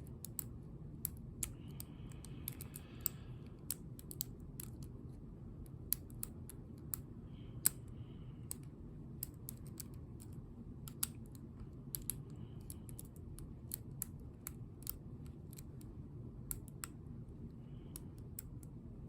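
Lock pick and tension wrench working the pin stack of a Ruko ASSA Abloy 2 lock cylinder: irregular small metallic clicks and ticks, a few a second, with a faint brief ring now and then.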